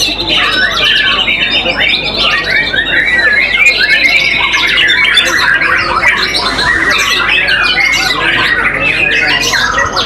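White-rumped shamas singing loudly all at once: a dense, unbroken chorus of rapid overlapping chirps, whistles and trills that swoop up and down in pitch.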